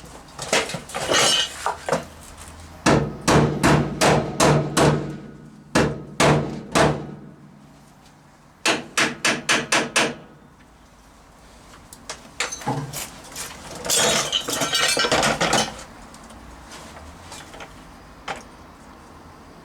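Hammer blows on the steel of a car body, in bursts of several quick strikes with pauses between, as an ill-fitting replacement rear bump stop mount is knocked into place.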